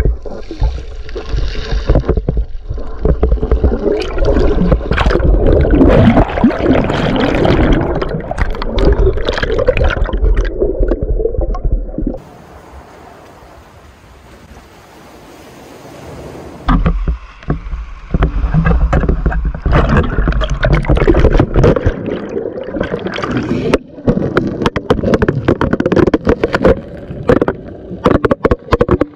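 Water sloshing and gurgling around a GoPro as it moves underwater and breaks the surface, with many sharp knocks and splashes. About twelve seconds in, this gives way for about five seconds to a soft steady hiss of small waves on a pebble beach, then the underwater sloshing returns.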